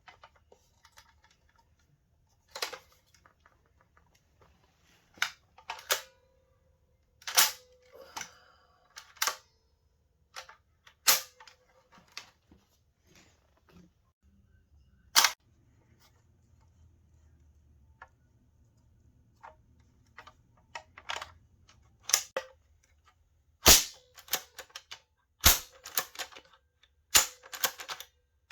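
Hubley 'The Rifleman' Flip Special toy lever-action cap rifle firing caps: about a dozen sharp cracks at irregular intervals, several coming in quick pairs near the end, with fainter clicks between them.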